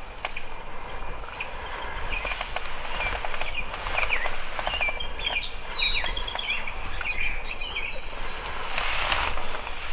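Small birds chirping and singing, a run of quick calls and gliding notes, over a steady low rumble.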